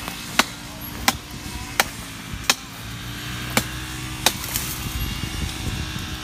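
Citrus tree being pruned by a man up in its branches: six sharp cutting strokes at the wood, about one every 0.7 seconds with one beat missed. A low rumble rises near the end.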